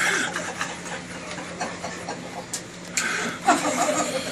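A few people laughing at a joke, with a louder burst of laughter about three and a half seconds in, over a steady low hum in the room.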